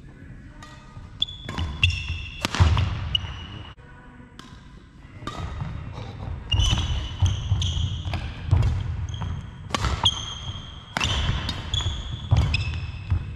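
Badminton rally: rackets striking the shuttlecock with sharp cracks, players' footsteps, and court shoes giving short high squeaks on the wooden sports-hall floor. A quieter lull comes about four seconds in before the hits and squeaks pick up again.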